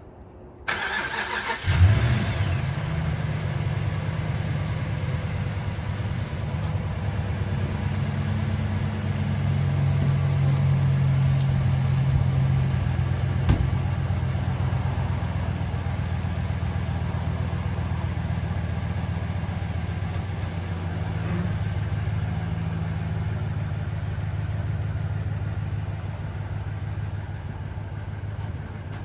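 Rebuilt Hemi V8 of a Ram pickup starting with a brief flare, then running steadily, rising a little in pitch for a few seconds about ten seconds in.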